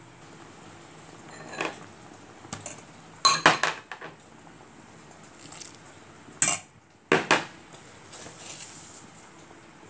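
Metal ladle clanking and scraping against the side of a stainless steel pot of coconut-milk soup as it is stirred. The clanks come irregularly, with a cluster about three and a half seconds in and the loudest at six and a half seconds, over a faint steady hiss.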